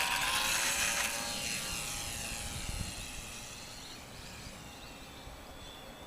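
Small radio-controlled styrene-foam model airplane's motor and propeller whining at high power as it flies past. The whine is loudest about a second in, then fades as the plane moves away, its pitch easing slightly downward.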